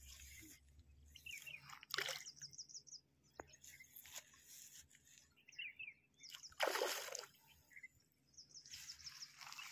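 Hooked rohu splashing in shallow water at the bank, a short splash about two seconds in and a longer, louder one about two-thirds through. Birds chirp in quick trills in the background.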